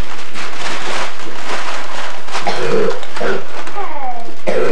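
Wrapping paper rustling and crumpling, with short bits of voice and a brief sound falling in pitch about four seconds in.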